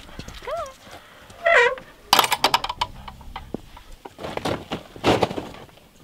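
Wooden plank gate knocking and rattling as it is handled, with a cluster of sharp knocks about two seconds in and more around four and a half to five seconds. A bird calls twice in the first second and a half.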